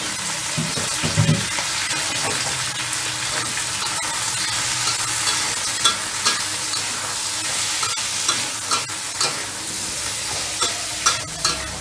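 Shrimp sizzling in hot oil in a wok as they are stirred with a spatula, a steady sizzle broken by frequent scrapes and clicks of the spatula against the pan.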